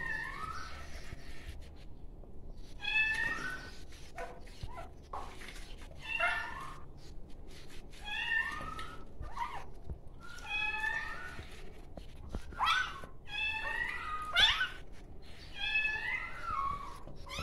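A very young kitten mewing over and over while being bathed, short high-pitched cries coming every second or two.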